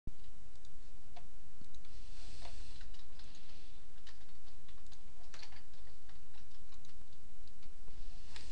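Typing on a computer keyboard: irregular, scattered key clicks with a few soft rustles, over a steady low hum.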